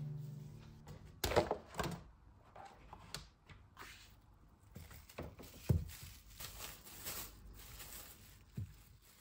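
Kitchen handling sounds: a few soft knocks as dough and a mat are set down on the counter, then plastic cling film crinkling as it is peeled off a ball of cookie dough.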